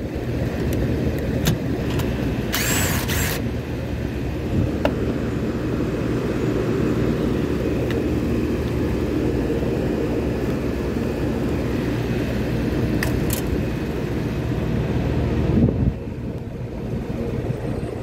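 Steady low mechanical rumble of a Trane rooftop AC unit running, its fans on in cooling stage one. About three seconds in comes a brief whir of a cordless drill/driver backing out an access-panel screw, and a few light clicks follow.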